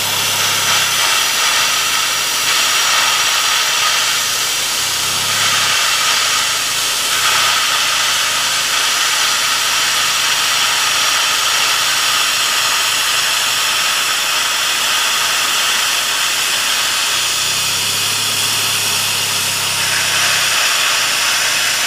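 Idling 2.2-litre four-cylinder engine of a 2000 Chevrolet Cavalier taking Seafoam through an open vacuum line: a steady loud hiss of air and fluid being drawn into the intake, with the low engine note coming up a few times as the idle dips under the liquid.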